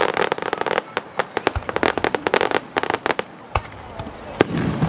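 Aerial fireworks crackling: a dense rapid run of sharp pops and snaps for about three seconds, thinning out to scattered pops with a few louder bangs near the end.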